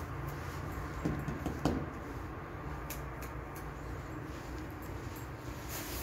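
Handling noise of a handheld phone being carried and panned: a steady low rumble with scattered light clicks and taps, and two louder knocks between one and two seconds in.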